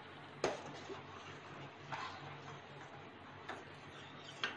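Steel ladle knocking and scraping against an aluminium pan while stirring milk being boiled down: about five separate clicks, the loudest about half a second in, over a steady low hum.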